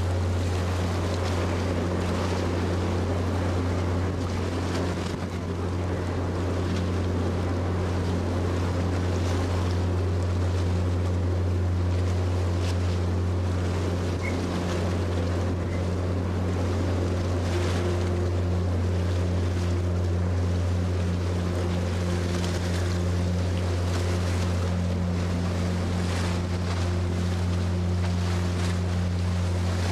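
Passenger ferry Azalea Maru's engines droning steadily, heard on deck as she comes alongside the quay, with wind across the microphone and water rushing along the hull.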